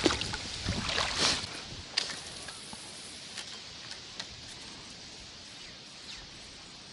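A cast and retrieve with a spinning rod from a small boat: a short swish about a second in and a sharp click near two seconds, then faint water lapping with a few small ticks as the lure is reeled in.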